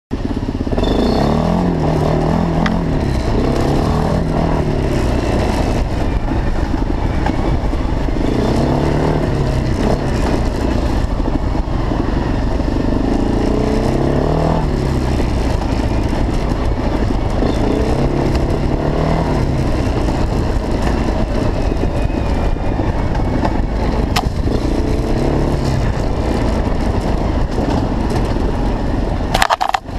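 TGB 425 quad's single-cylinder four-stroke engine running under load, its revs rising and falling again and again every couple of seconds as the throttle is worked. A brief sharp noise and a short dip just before the end.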